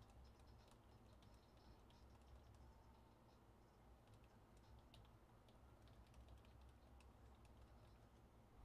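Faint typing on a computer keyboard: scattered soft key clicks, irregular, over a low steady hum.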